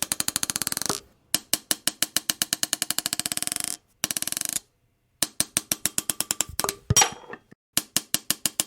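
A marble dropped again and again onto a hard surface. Each drop is a run of sharp bounces that come faster and fainter until the marble settles, with a louder clatter in one of the later runs.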